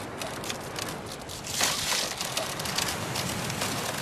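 Plastic PVC tubes and joints of a strandbeest frame clicking and rattling as they are handled, with a louder burst of rattling noise about one and a half seconds in.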